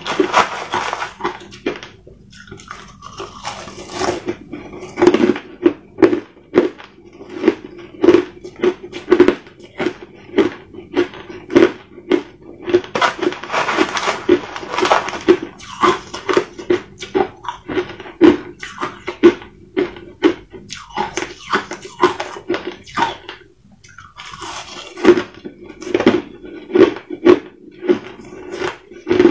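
Crushed ice crunched between the teeth in quick, steady bites, about two a second. Every so often a metal spoon scoops and scrapes through the crushed ice in a plastic tub.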